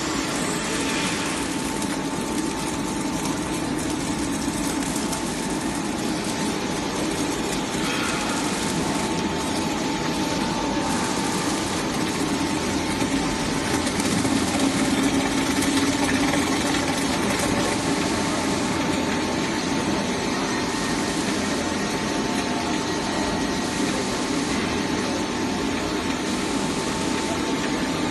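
Film slitting and rewinding machine running steadily, a constant mechanical rushing noise with a steady high hum on top.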